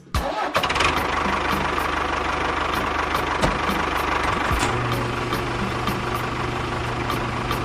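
A motor running steadily with a fast low chugging pulse and a light tick about three times a second. A steady hum joins in about four and a half seconds in.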